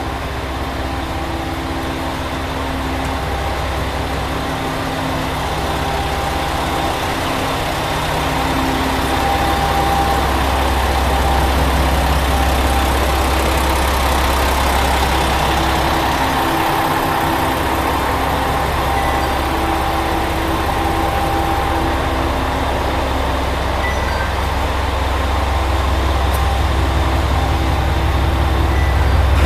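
Diesel engines of a Chizu Express HOT7000 series railcar running at idle, a steady low hum with a constant drone.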